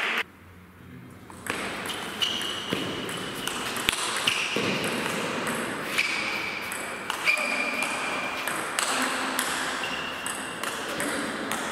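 Table tennis rally: the ball clicks off the rackets and pings on the table in a quick alternating series, about one hit every half second to second. This starts after a brief quiet moment at the beginning.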